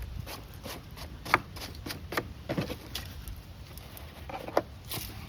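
Irregular knocks, clicks and clinks of tools and items being handled, over a steady low rumble.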